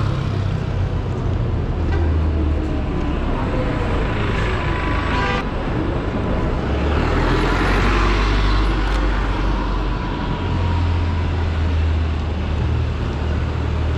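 City street traffic: engines of buses and cars running close by as a steady low rumble, with a vehicle passing and swelling in noise about halfway through.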